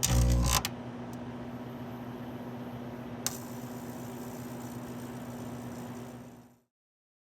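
Microwave oven running: a steady hum with a held low tone, one click about three seconds in, cutting off abruptly near the end. A louder sound breaks off about half a second in.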